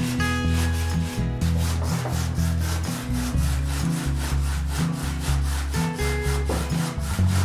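Handsaw cutting into a soft stone wall, a fast, steady back-and-forth rasp of strokes, with background music with a bass line underneath.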